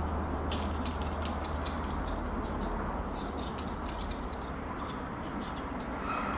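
Light, irregular clicks and scrapes of hands handling parts inside a desktop computer case, over a steady low hum.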